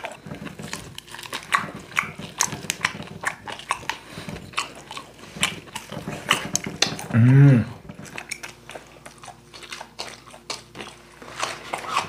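Close-up eating sounds: biting, tearing and chewing grilled rabbit meat, with many short clicky mouth noises throughout. About seven seconds in, a short loud strained grunt from the eater.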